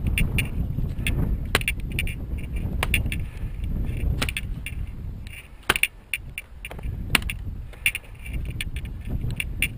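Walking and handling noise from someone carrying a wooden mallet: a low rumble with sharp knocks and clicks about every second, two of them louder in the second half.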